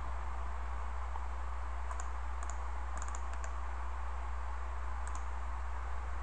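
Computer mouse clicking: several quick clicks between about two and three and a half seconds in, and a close pair about five seconds in. Under them runs a steady low hum and hiss.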